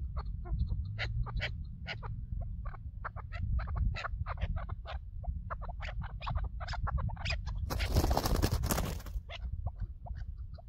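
Chukar partridges calling in a rapid run of short, sharp 'chuk' notes, several a second. About eight seconds in, a rush of noise breaks in for about a second and a half.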